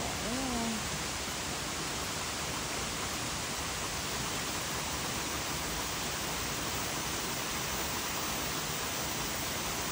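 Steady, even rushing of flowing water from a stream.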